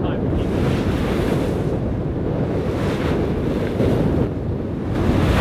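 Wind buffeting the microphone over the rush of water along the hull of a sailing yacht beating upwind through choppy sea. The hiss of the bow wave and spray swells three times.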